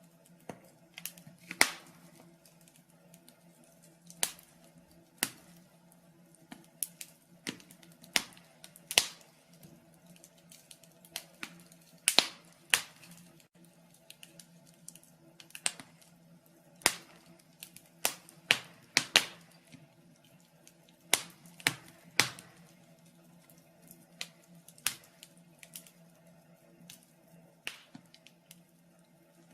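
Wood fire in a fireplace crackling, with irregular sharp pops of varying loudness over a faint steady low hum.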